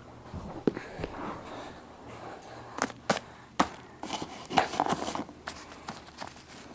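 Scattered light clicks, taps and soft rustles of small plastic toy figures and props being handled and moved, bunched together in the middle.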